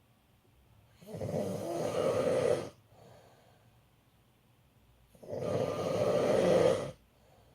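A man snoring in his sleep: two long snores about four seconds apart, with quiet between them.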